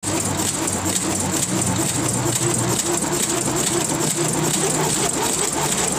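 A small motor running steadily with a fast, even rattle, typical of a homemade shake table shaking a wooden craft-stick model bridge.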